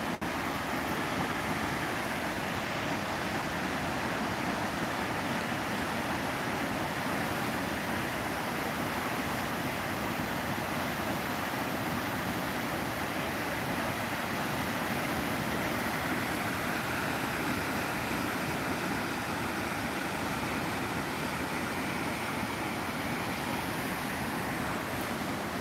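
Rocky mountain stream rushing in white water over boulders: a steady, even rush of water.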